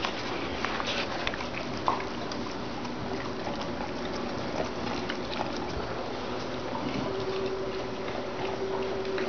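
Dogs eating raw meat off a metal tray: steady wet smacking, licking and chewing, with many small clicks scattered throughout.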